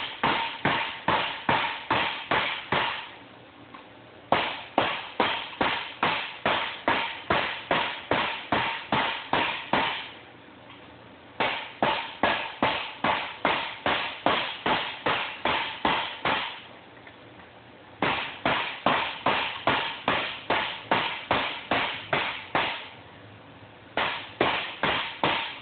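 Hammer blows on steel exhaust tubing over a bench dome, shrinking the tube's diameter. The strikes come in quick, regular runs of about three to four a second, each with a short metallic ring, and short pauses between runs as the tube is turned.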